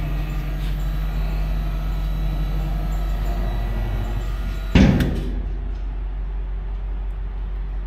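Electric-hydraulic loading dock leveler: its pump motor hums steadily, then about five seconds in the steel deck plate comes down onto the trailer floor with a single loud metal bang, and the hum stops.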